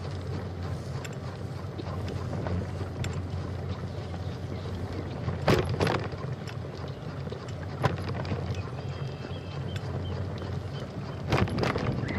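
Wind buffeting the microphone over the steady rumble of a pedal bicycle rolling along a trail. Sharp knocks come about halfway through, once more about two seconds later, and again near the end.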